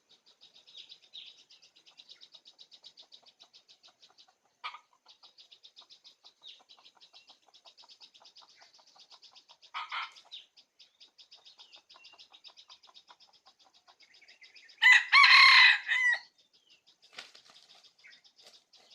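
A junglefowl cock crowing once, loud and short, about fifteen seconds in, with a couple of briefer calls earlier. Under it runs a steady, fast-pulsing, high insect chorus.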